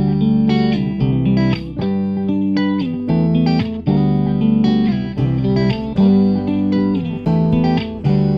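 Background music: an instrumental track led by plucked guitar, its notes changing in a steady rhythm about twice a second.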